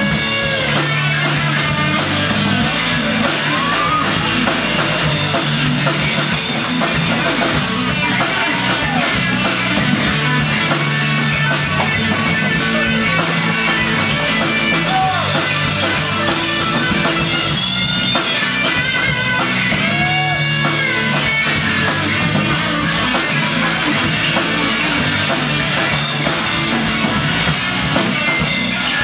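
Live country band playing loudly on electric guitars, bass and drum kit to a steady drum beat, with a fiddle at the start.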